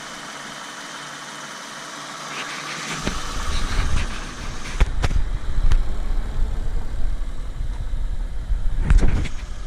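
2007 Toyota Sienna minivan idling, a steady hiss at first, then from about three seconds in a loud low rumble with irregular thumps on the microphone.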